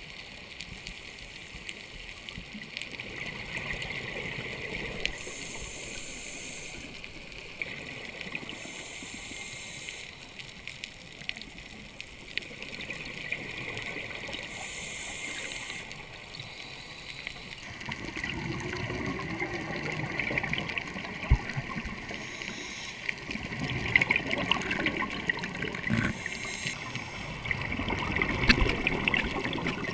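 Underwater sound of scuba breathing through a regulator: exhaled bubbles gurgle in surges every few seconds over a steady watery hiss, louder near the end.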